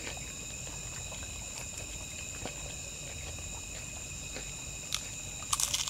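Steady high chirring of night insects, several constant tones at once, with a few crisp crunches of fried food being bitten, a cluster of them near the end.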